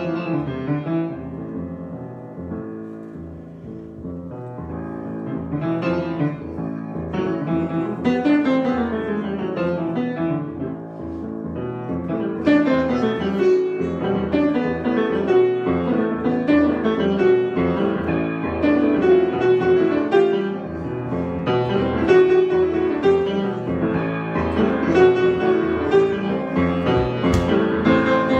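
Solo piano improvisation with quick runs of notes, starting softer and growing fuller and louder about twelve seconds in.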